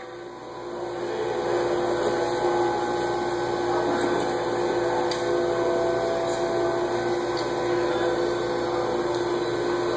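A steady machine hum with several steady tones, coming up to full level in the first second or so, with a few faint clicks and knocks over it.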